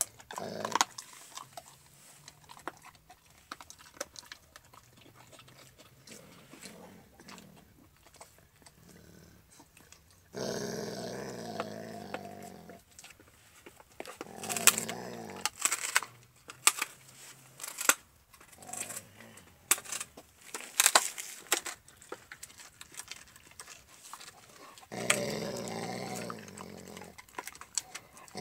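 Alaskan malamute chewing a raw meaty bone, with sharp crunching cracks scattered throughout. The dog growls twice for two or three seconds each time, once about ten seconds in and once near the end.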